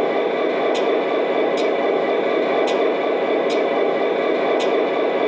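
O-scale model diesel locomotive's MTH Proto-Sound 3.0 sound system playing an EMD SD40-2 diesel sound file through its small onboard speaker: a steady engine idle with no deep bass and a short sharp tick about once a second.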